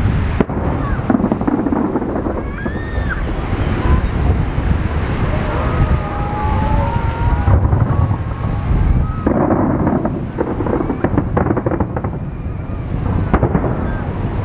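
Strong wind buffeting the microphone, a steady low rumble, with a few faint rising and falling whistle-like tones over it.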